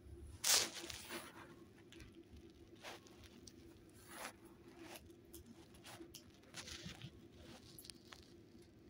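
Blanket rustling and scuffing in irregular short bursts, the loudest about half a second in, over a faint steady hum.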